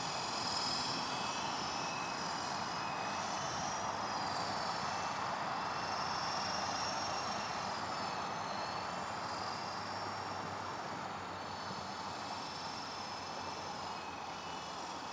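"Big Lama" helicopter flying, a steady drone of rotor and motor noise with high whines that rise and fall in pitch as the throttle changes, easing off slightly near the end.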